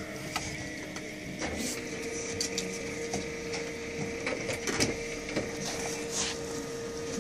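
Canon DR-6010C document scanner running with a steady mechanical hum that starts about a second and a half in, with scattered clicks and ticks from the feeder mechanism.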